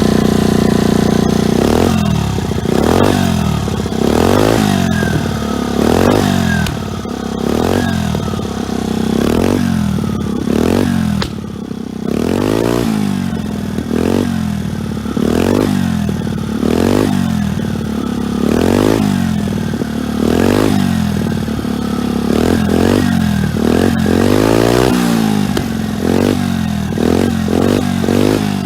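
Four-stroke scooter engine of a Kymco Vitality with a LeoVince aftermarket exhaust, idling briefly and then blipped over and over: short revs that rise and fall about every second and a half, a longer rev a little before the end, and quicker blips in the last few seconds.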